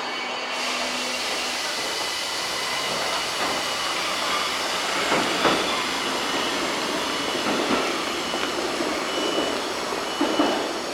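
Tokyo Metro 1000 series subway train moving along the station platform: a steady rushing hiss of wheels and running gear, with a few clacks over rail joints.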